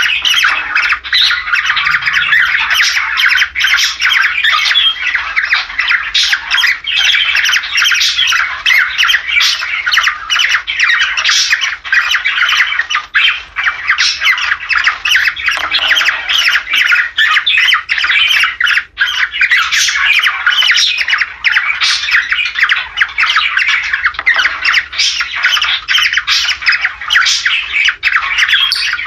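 Cockatiels calling in their breeding-season chatter: continuous squawks and warbling with hardly a pause.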